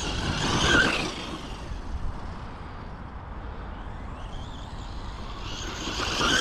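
FTX Ramraider brushless RC monster truck driving on grass, its electric motor and drivetrain whining. It gets louder as it comes near about a second in and again near the end, and is fainter in between.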